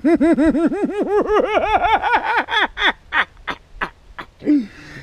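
A man laughing without words: a fast, even string of ha-ha syllables, about six a second, climbing in pitch, breaking midway into short breathy gasps, and ending on one falling note.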